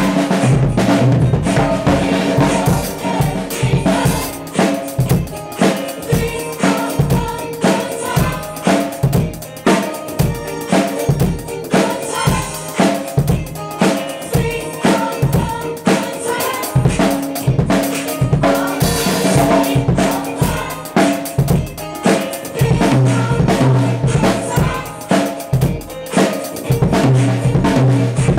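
Drum kit played with sticks in a continuous groove: bass drum, snare and cymbals struck in a steady rhythm as a warm-up.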